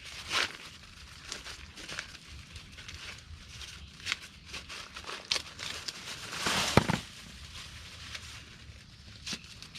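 Dry corn leaves and husks rustling and crackling as corn is picked by hand, in irregular short bursts, with a longer, louder rustle ending in a dull thump about seven seconds in.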